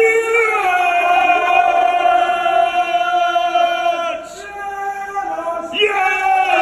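A group of men singing a drawn-out chant in long, held notes, sliding between pitches, with a brief drop about four seconds in.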